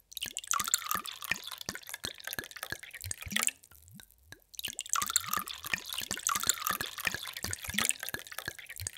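Water poured in a stream into a glass, splashing with many small bubbly plops and drips. The pour breaks off after about three and a half seconds, leaving a second of scattered drips, then starts again.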